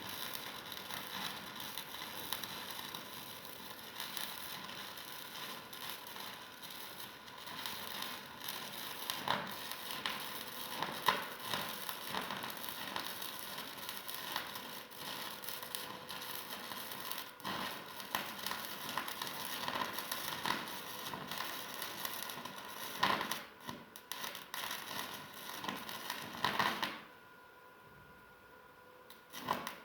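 Electric arc welding: a continuous crackle with frequent sharp pops. The arc cuts off about three seconds before the end.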